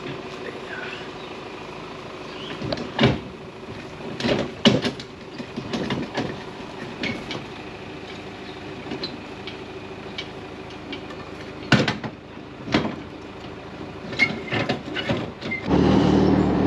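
Metal clanks and knocks from a jet ski trailer being hitched, its jack wound by hand and the coupling worked onto the tow ball, with several sharp bangs among them. Near the end a jet ski engine idles steadily.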